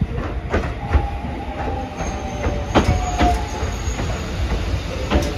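Hakone Tozan Railway train running with a steady low rumble and sharp clicks from the wheels on the rails. The wheels squeal with high tones from about one second in until just past the middle.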